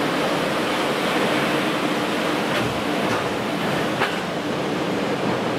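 A ChS7 electric locomotive and its passenger coaches passing close by: a steady rumble of wheels on rails, with three short sharp clicks about two and a half, three and four seconds in.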